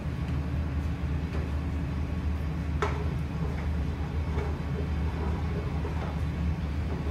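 Steady low rumble of a commercial kitchen, with scattered knocks of a long utensil against a large steel pot as a sauce is stirred; one sharper clack about three seconds in.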